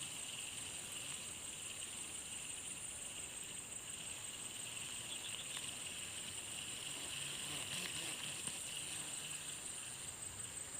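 Insects chirring steadily: a high, fast-pulsing trill over a lower continuous buzz, with a few faint ticks about two-thirds of the way in.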